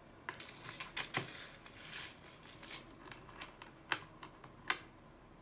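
Small clicks and rustles of pearl earrings with metal fittings and their paper and plastic packaging being handled on a table. Two sharp clicks come near the end as pieces are set down.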